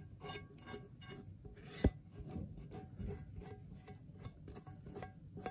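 Silicone spatula scraping thick cheese sauce out of a nonstick skillet in quick, irregular strokes, with one sharper knock about two seconds in.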